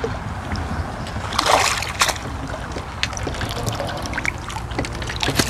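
Water splashing as a hooked crucian carp thrashes at the pond surface and is brought to the landing net, with one bigger splash about a second and a half in. A few sharp clicks follow.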